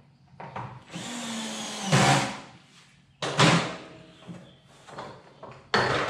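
Cordless gyroscopic screwdriver whirring steadily for about a second as it drives a screw, followed by several loud knocks and clunks as the plastic vacuum drum is handled.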